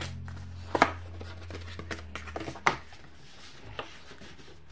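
Hands handling a folded cardstock kit folder and a plastic bag of drills on a tabletop: light rustling with a few sharp taps, the loudest about a second in and again near three seconds. A low steady hum underneath fades out about halfway through.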